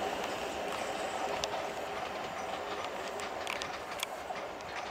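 Class 444 Desiro electric multiple unit pulling away and receding, a steady running noise with scattered wheel clicks over rail joints and points, fading slightly.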